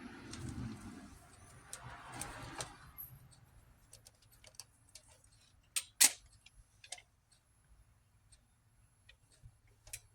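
Handling noise with rustling for the first few seconds, then scattered small clicks and taps, with a sharper click about six seconds in, as a multimeter is set up to test a new battery's voltage.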